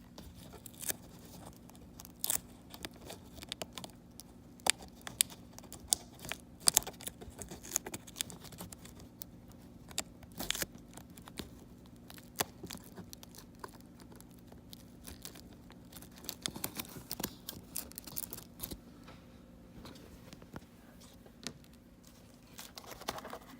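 Irregular small clicks, taps and crinkling as hands work the laptop's display ribbon-cable connector and its tape, reseating the cable, over a faint steady low hum.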